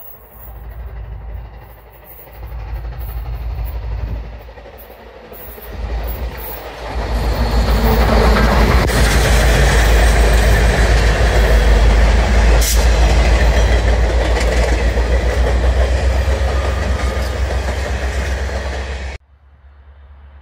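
Canadian Pacific 2816, a 4-6-4 Hudson steam locomotive, and its train passing close at speed. The sound builds over several seconds to a loud, steady noise of wheels on rail as the engine, tender and trailing cars go by, then cuts off suddenly near the end.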